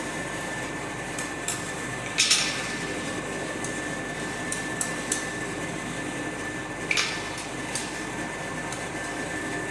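Hammer blows on steel while riveting a pair of forged blacksmith calipers: two sharp ringing strikes about five seconds apart, with a few light taps between them, over a steady background hum with a faint high tone.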